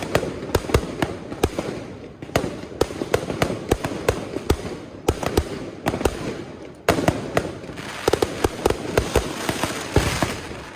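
Fireworks going off: a rapid, irregular string of sharp bangs and crackling that grows denser about seven seconds in, then dies away near the end.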